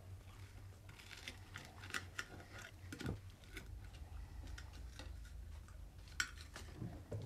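Faint, scattered clicks and taps of a knife and fork on a plate, over a low steady hum.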